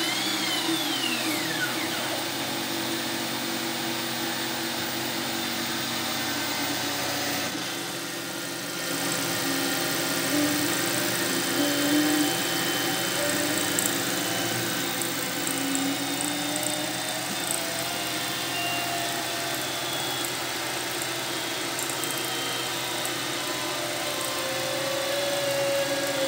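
Bridgeport BRJ milling machine cutting a circle in a metal plate under CNC control: the spindle running steadily with the end mill cutting, while the stepper motors driving the table handles through toothed belts whine, their pitch rising and falling as the axes speed up and slow. The noise drops briefly about eight seconds in.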